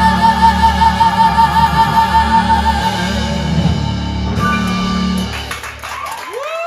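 Live piano-rock band (keys, bass guitar, drums) with a singer holding a long wavering note at the end of a power ballad. The band stops about five to six seconds in, leaving a short note that rises and falls.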